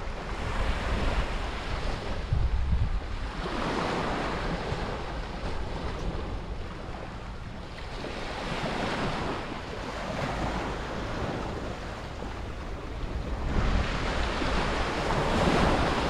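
Small surf breaking and washing up the sand, swelling and fading about every four to five seconds, with wind buffeting the microphone as a low rumble.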